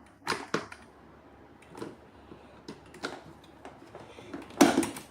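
Handling noise of hose and faucet fittings being worked into place: a few scattered small clicks and knocks, the loudest one near the end.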